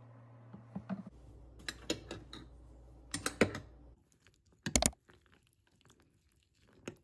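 Metal spoon tapping and scraping against a glass mug of cereal and milk, in short clusters of clicks, with one sharp clink a little before five seconds in. A low steady hum sits under the first half.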